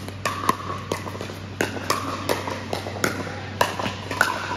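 Pickleball doubles rally: sharp pops of paddles striking the plastic ball and of the ball bouncing on the court, coming irregularly about every half second to a second, in a large indoor hall over a steady low hum.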